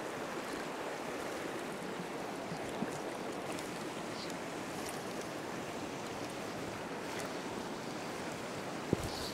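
Shallow rocky stream running steadily over a riffle, an even rushing of water, with a brief click near the end.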